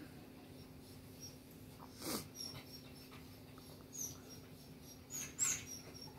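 Dog barking faintly in the background: a few separate short barks, the loudest about five seconds in, over a steady low hum.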